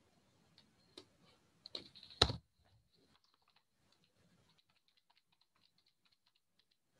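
Computer keyboard typing: a few separate key clicks, a louder knock about two seconds in, then a run of faint, rapid key taps.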